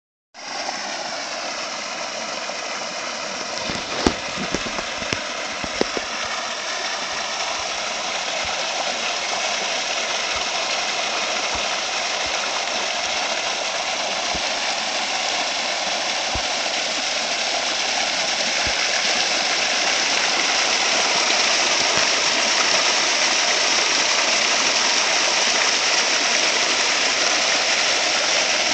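Water from a natural spring fountain gushing and splashing steadily, growing a little louder toward the end, with a few sharp clicks about four to six seconds in.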